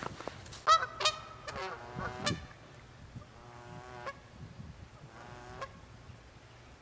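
Canada geese honking: a quick run of loud honks in the first couple of seconds, then two fainter, longer calls.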